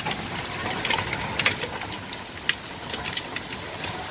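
Hailstorm with heavy rain: a steady hiss dotted with many sharp clicks as hailstones strike the wooden deck and ground.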